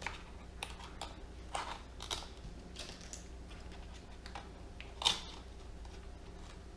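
Faint, irregular clicks and short scrapes of a small tool working against a stuck part inside a laptop as it is pried at, with the sharpest click about five seconds in.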